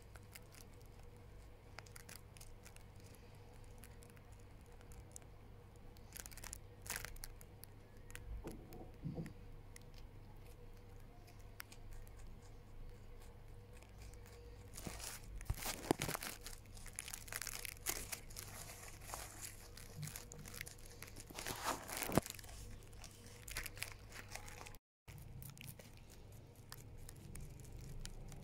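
Lop-eared rabbit chewing fresh greens, a leaf and a crisp green stalk: a quick run of small crunching clicks, with louder spells of crunching about halfway through and again later on.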